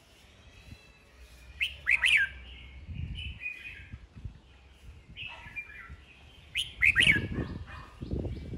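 Red-whiskered bulbul's competitive song: two bursts of loud, sharp whistled notes, about two seconds in and again about seven seconds in, with softer warbled phrases between them.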